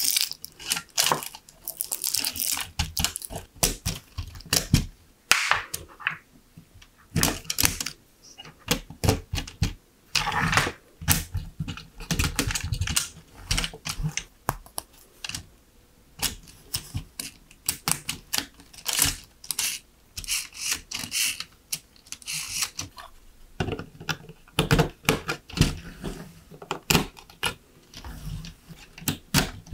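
Plastic LEGO Technic parts clicking and snapping together by hand, with rattling and scraping as beams, pins and a motor are fitted, in an irregular run of sharp clicks with short pauses.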